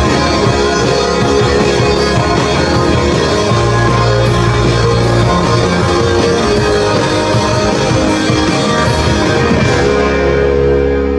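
Live rock band playing loudly, with electric guitars, bass and drums. About ten seconds in the cymbal strokes stop and the held chords ring on as the song winds down.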